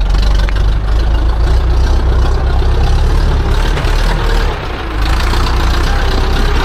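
Farm tractor engine running loud and low, with a short dip in level a little over two-thirds of the way through.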